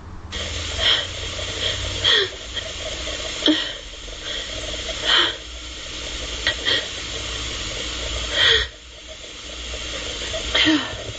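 A person's short, sharp breaths recurring every second or two, gasps that build up to a sneeze, over a steady hiss and low hum.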